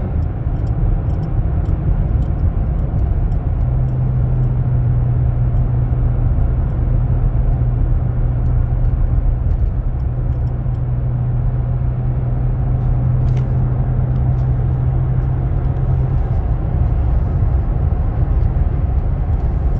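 Chevy Colorado pickup's engine and road noise heard inside the cab while cruising at highway speed towing a car on a trailer, the engine holding about 2,300 rpm under the load. A steady low engine drone sits over the rumble from about four seconds in until about sixteen seconds.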